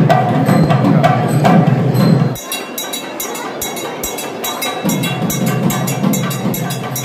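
Temple ritual music with drumming; about two and a half seconds in it drops to rapid, even metallic strikes, about six a second, as a hand bell is rung for the camphor aarti, with the lower music coming back in under it near the end.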